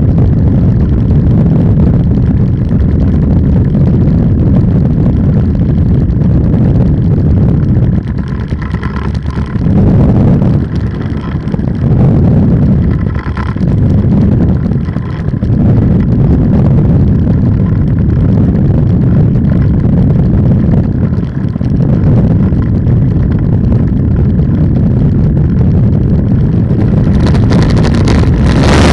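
Polini 190 single-cylinder two-stroke engine of an ultralight trike running steadily under heavy wind rush on the microphone. The level dips briefly a few times in the middle, letting a higher engine tone through.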